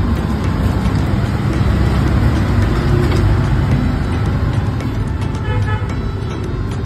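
Steady road traffic rumble, with a vehicle horn tooting briefly about five and a half seconds in.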